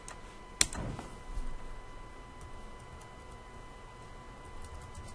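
A sharp single computer mouse click about half a second in, then faint scattered clicks that come quicker near the end as keyboard typing starts. A faint steady high-pitched tone runs underneath.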